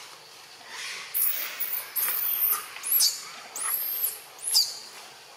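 A run of about five shrill, very high-pitched animal squeals, each rising and then falling, packed between about one and five seconds in.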